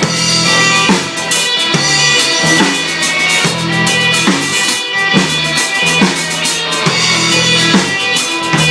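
Rock band jamming instrumentally: a drum kit keeps a steady beat with cymbals, under guitar.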